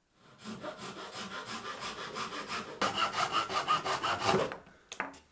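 Small hand saw cutting through a thin bark-covered green stick, in quick even strokes about five a second that get louder about three seconds in. Two brief knocks just before the end.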